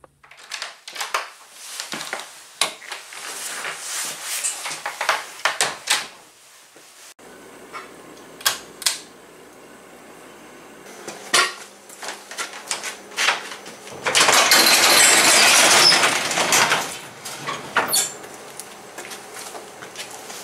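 Metal items being handled, clinking and clattering in a series of sharp knocks, with a louder, rough rattling lasting about two seconds past the middle.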